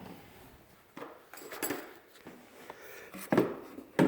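Jeep Wrangler intake tube and air filter cover being handled and fitted back onto the air box: a few short knocks and scrapes, the loudest a little over three seconds in and near the end.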